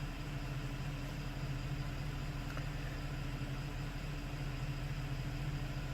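Porsche Cayenne GTS engine idling steadily, heard from inside the cabin as a low, even hum.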